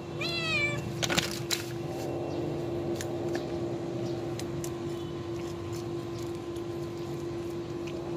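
A kitten meows once, a short call that falls slightly in pitch at the end. It is followed by a few sharp clicks and then faint scattered clicking as the kittens chew shrimp shells from a foam tray, over a steady hum.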